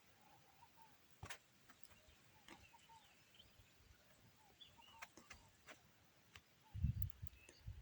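Very quiet outdoor ambience with scattered faint bird chirps and a few sharp clicks, then low muffled bumps near the end.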